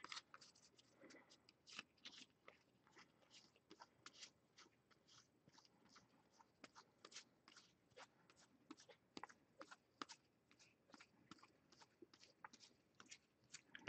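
Faint, irregular clicks and ticks of trading cards being handled and flicked through by hand.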